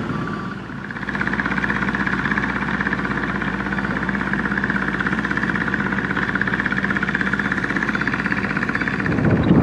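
Komatsu excavator's diesel engine running at a steady speed, with a fast, even pulse and a higher hum above it.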